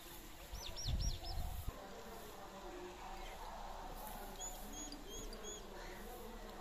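Young Ongole bull pawing and scraping at straw-covered dirt with a front hoof, with a short low rumble about a second in. A small bird chirps in two runs of four quick notes, one near the start and one past the middle.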